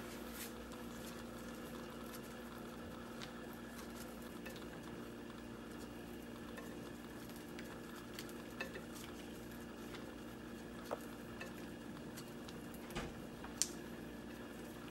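Soft handling sounds of gloved hands tearing strips of chewy jjondeugi snack, with light clicks and taps as pieces drop onto a ceramic plate, the sharpest near the end. A steady low hum runs underneath.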